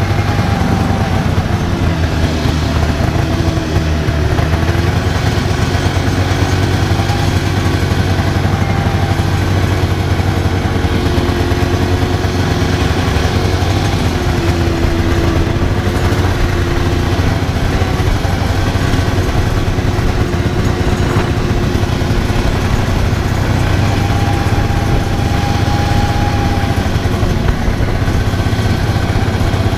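A small engine running steadily at an even speed, with a strong low hum and no pauses, like a vehicle under way.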